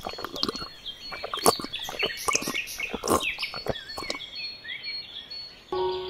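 Water splashing into a small model pond in quick, irregular splashes for about four seconds, with birds chirping steadily in the background.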